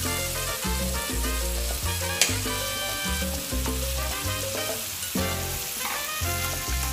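Marinated beef short ribs and asparagus sizzling steadily on a hot grill pan, with upbeat background music and a repeating bass beat playing over it.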